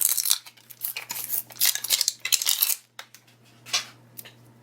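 Crinkling and tearing of the thin plastic wrapper on a Mini Brands capsule ball as it is pulled open, for a little under three seconds. Then three short clicks or taps.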